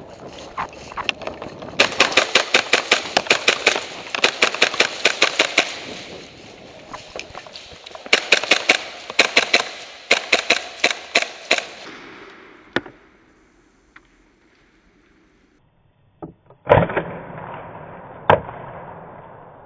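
Airsoft guns firing in two long runs of rapid sharp snaps, about six a second, echoing off the walls. After a quiet stretch there is a loud dull knock near the end.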